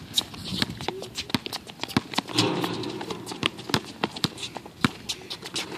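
Basketball bouncing and sneakers stepping on an outdoor concrete court: a quick, irregular run of sharp knocks.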